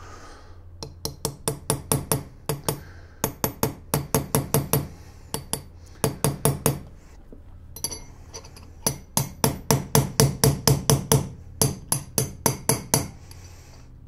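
Small hammer tapping an old bearing race used as a drift, driving a freezer-chilled tapered roller bearing outer race into a BMW 188 differential's output-shaft bearing housing. The light metal-on-metal taps come in quick runs of about five a second, with short pauses between runs.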